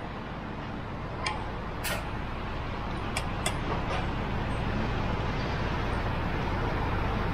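Road traffic passing: a steady low rumble that slowly grows louder, with a few light clicks in the first few seconds.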